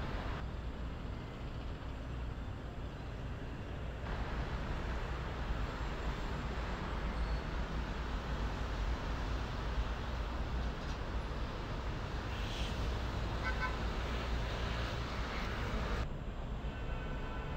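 Steady city road traffic from a busy multi-lane street: engines and tyres running together in a continuous hum, with a few short high pips about three-quarters of the way in.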